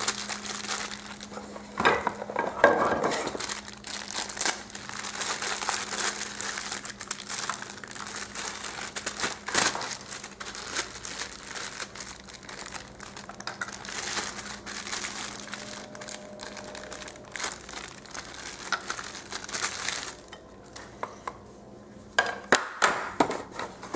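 Thin plastic packaging bag crinkling and rustling as it is handled and worked open around a power adapter, with scattered sharp clicks and taps. The noise dies down about twenty seconds in, and a few handling clicks follow near the end.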